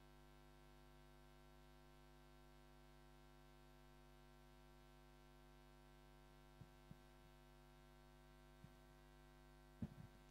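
Near silence: a faint steady electrical mains hum, with a few faint clicks in the second half.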